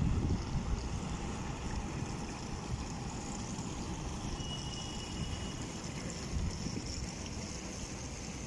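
Steady outdoor background noise: a low, uneven wind rumble on the microphone under a constant hiss, with a brief faint high tone about halfway through.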